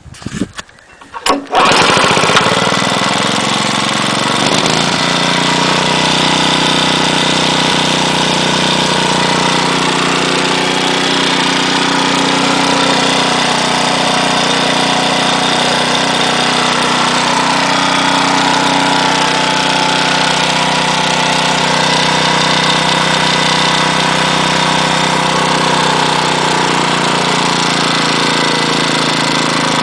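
Mitsubishi GM131L single-cylinder four-stroke engine catching about two seconds in, then running steadily with an abnormal noise. The owner thinks it is bearing knock, from carburettor overflow letting petrol into the crankcase and thinning the oil.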